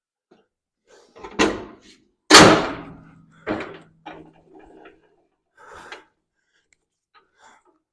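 Steel swing-arm tool stands carrying a vise and a bench grinder being swung up and snapped into their locked position. The sound is a series of heavy metal clanks and knocks. The loudest comes about two seconds in and rings on for a moment.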